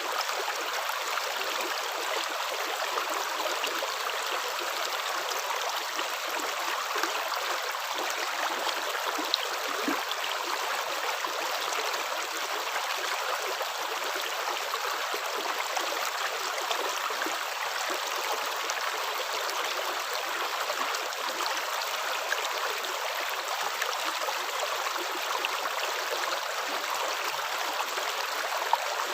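Running water flowing steadily, like a stream, with an even rushing sound and no distinct splashes or steps.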